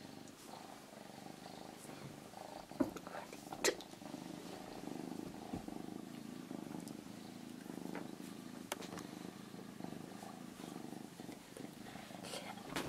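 Calico kitten purring, a faint, steady low rumble, with a few light clicks now and then.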